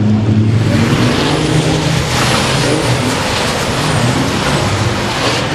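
Racing trucks' turbodiesel engines running, with a loud rushing noise building about half a second in and easing near the end.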